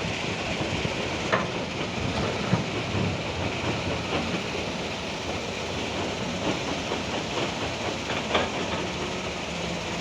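Heavy machinery working: a steady rumbling hiss of noise with a few sharp metallic knocks, about one and a half seconds, two and a half seconds and eight and a half seconds in.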